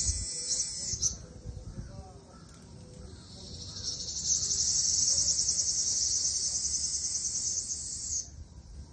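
Cicada calling: a loud, high, fast-pulsing buzz that cuts off about a second in, starts again softly a few seconds later and swells, then stops abruptly near the end.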